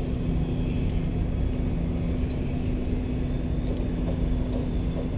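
Steady low engine rumble with a constant hum, with a couple of faint clicks about three and a half seconds in.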